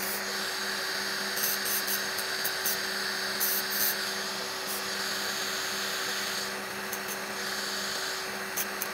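Electric nail drill with a flat sanding disc bit running at a steady pitch, grinding gel off fingernails, with brief scratchy grinding sounds several times as the disc bears on the nail.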